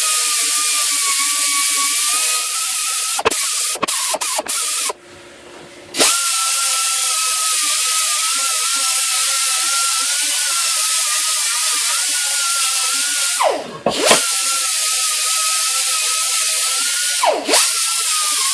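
Electric grinder grinding and polishing railroad-rail steel: a steady high whine with a loud grinding hiss. It cuts out briefly a few times around three to four seconds in, stops for about a second near five seconds, and twice near the end its pitch dips and comes back up.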